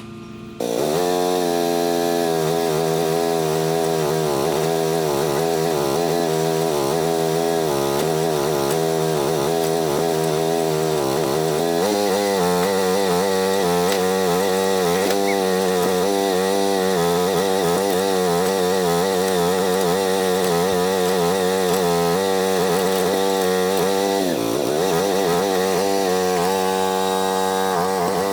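Chainsaw running at high speed, its pitch wavering up and down continuously as it cuts under changing load. It starts abruptly about half a second in, with a brief drop and recovery in speed near the end.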